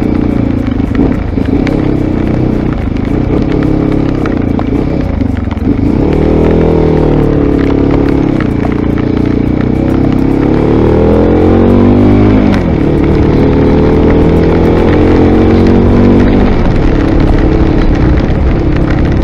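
Mondial RX3i Evo's 250 cc single-cylinder engine under way, pulling away through the gears: its pitch rises about six seconds in, climbs again a few seconds later, drops as it shifts up, and falls back near the end. Over it runs a steady hiss of rain and wind.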